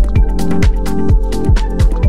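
Background electronic dance music with a steady kick drum about twice a second under sustained synth chords.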